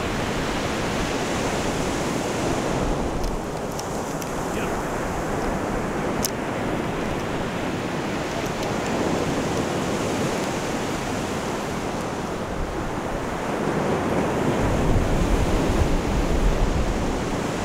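Surf breaking on the beach: a steady wash of waves, with wind buffeting the microphone, which grows stronger for the last few seconds.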